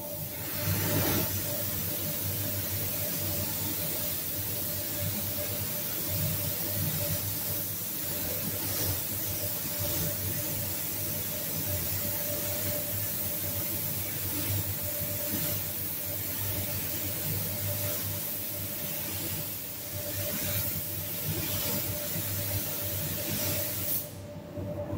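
Gravity-feed paint spray gun hissing steadily as it sprays base coat, with small swells as the strokes change. The hiss cuts off about a second before the end when the trigger is released, leaving a steady hum underneath.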